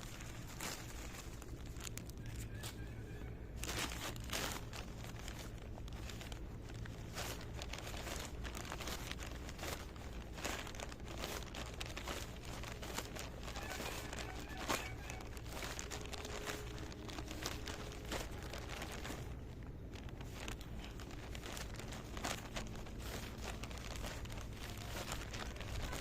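Hands crumbling bread pieces and working them into a fishing bait mix of bran and flour: irregular crinkling and crackling that keeps on.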